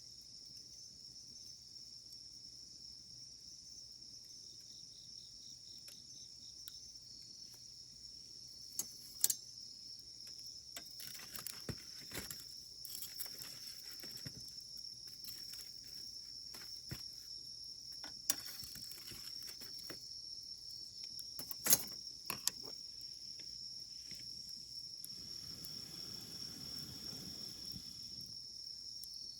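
Burning firewood crackling in an open campfire: sharp pops and snaps every second or few, with two louder snaps about a third of the way in and a little past the middle. A steady high insect chorus runs underneath, and a soft rush of noise comes in near the end.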